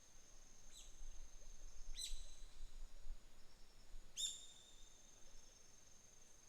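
Outdoor morning nature ambience: an insect holds a steady high-pitched trill throughout while a bird gives three short, sharp calls that drop in pitch, about a second in, two seconds in and just after four seconds, the last one the loudest.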